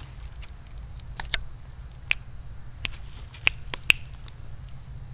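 Dry twigs snapping underfoot on a pine-needle forest floor: about eight sharp, irregular cracks, bunched in the middle of the stretch.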